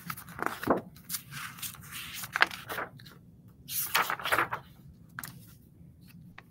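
Paper rustling and flapping as a large picture book is handled, opened and its pages turned, in several noisy bursts with a few sharp clicks.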